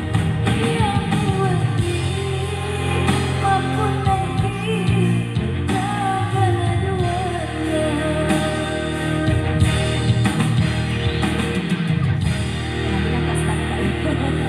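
Music: a song with a sung vocal line over steady instrumental accompaniment, the voice most prominent in the first half.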